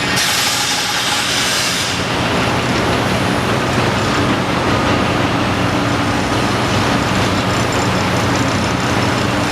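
Cat 330DL excavator's diesel engine running steadily under load while working, with a high hiss over it for the first two seconds.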